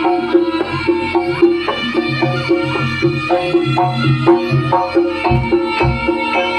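Live jaranan gamelan music: a fast, even pulse of struck, ringing metal gong-chime notes over hand-drum beats.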